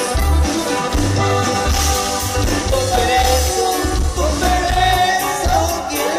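A live norteño band playing: accordion melody over guitar, bass and a steady beat, amplified through a PA.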